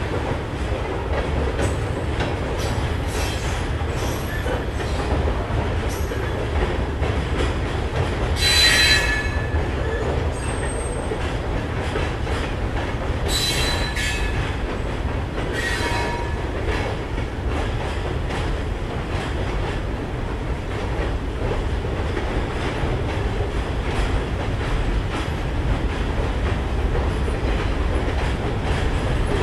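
Freight cars of a slow-moving Norfolk Southern freight train rolling past with a steady low rumble and occasional wheel clicks. Wheels squeal briefly three times: about 9 s in (the loudest), then around 13 and 16 s in.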